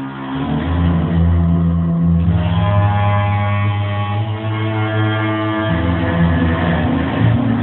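A stringed instrument playing sustained low notes rich in overtones, the pitch shifting every second or two, giving an odd growling sound.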